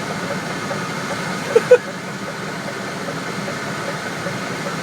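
Truck engine idling with a steady hum heard from inside the cab, and two short sharp sounds about one and a half seconds in.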